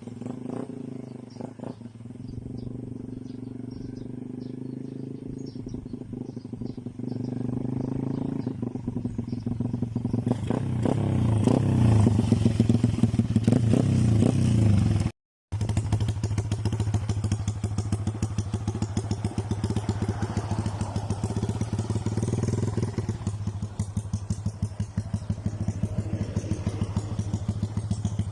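Rusi Korak 110's 110 cc single-cylinder engine running through an aftermarket AUN pipe exhaust. It gets louder in steps, loudest a little past the middle, and cuts out briefly. It then runs on steadily with a regular pulsing beat.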